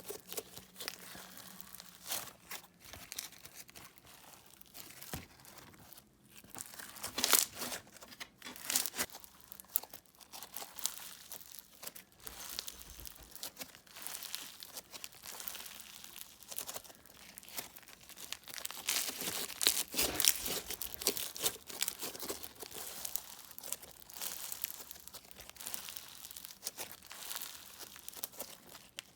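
Crunchy bead slime being squished and stretched by hand: a steady run of crackling clicks and small air-bubble pops, with a few louder pops here and there.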